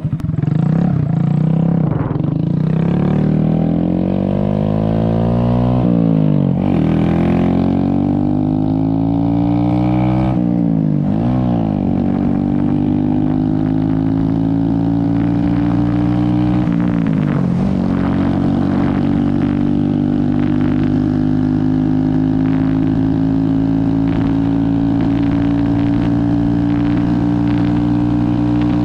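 Honda Grom's 125cc single-cylinder engine accelerating from a standstill, its pitch climbing and dropping sharply at each of several upshifts. It then settles into a steady cruise for the last ten seconds or so.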